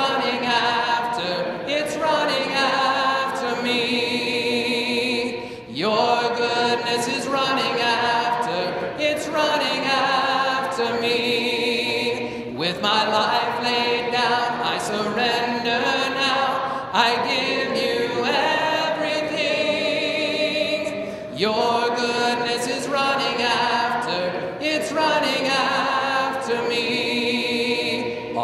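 Church congregation singing a hymn a cappella, many voices together with no instruments. The singing comes in phrases of several seconds, with brief breaks between them.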